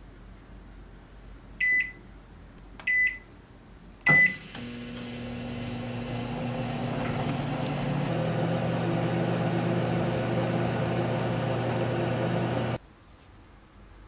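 Microwave oven keypad beeping three times as its buttons are pressed, then the oven running with a steady hum for about eight seconds until it cuts off suddenly.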